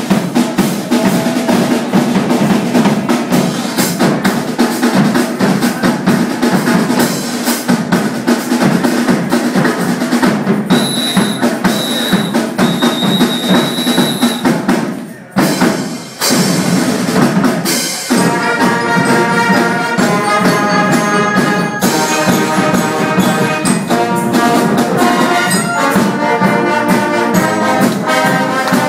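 Parade band performing: a drum section plays a fast, dense rhythm on bass and snare drums, with three short high piercing tones near the middle. After a brief break about halfway through, the drums pick up again and the band plays sustained chords over them.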